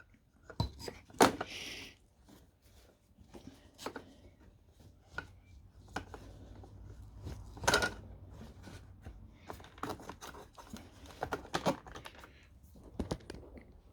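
Scattered small clicks, knocks and rustles of hands working at a newly fitted aluminium seat belt guide on a car seat, with the sharpest knock about a second in and another near eight seconds.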